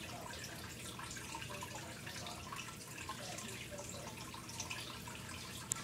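Water in a turtle aquarium trickling and dripping steadily in many small, irregular splashes, with one short sharp click near the end.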